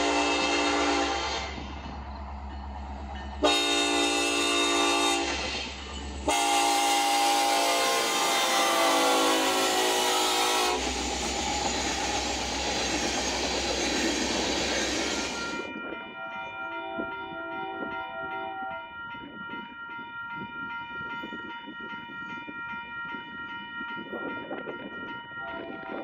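Diesel freight locomotive air horns sounded in a series of loud blasts, one sliding down in pitch as the train passes. Then comes the rumble and clatter of loaded freight cars rolling over the rails, followed by fainter, steady high-pitched tones.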